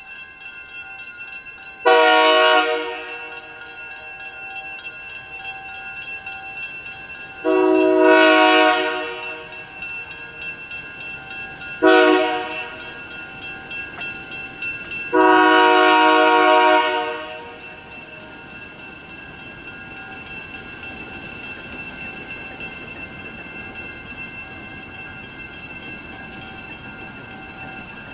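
An ALCO diesel locomotive horn sounds the grade-crossing signal, two long blasts, a short one and a final longer one, as the excursion train approaches a road crossing. A steady ringing runs underneath, and the train rumbles past after the horn stops.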